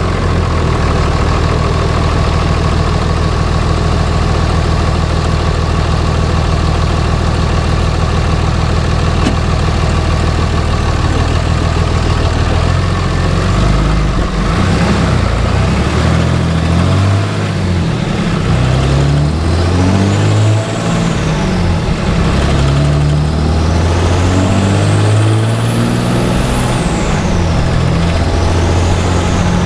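Cummins turbo-diesel engine idling steadily, then revved up and down repeatedly from about halfway through. A high turbocharger whistle rises and falls in pitch with the bigger revs.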